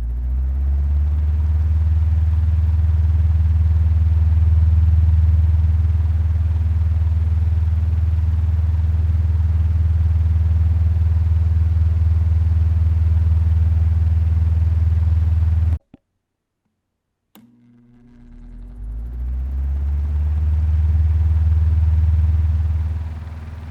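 Electric fan running with a steady deep hum and an even rush of air. About 16 s in the sound cuts out abruptly; after about a second and a half it comes back, swelling over about two seconds as the fan is switched on and spins up, then falls off somewhat near the end.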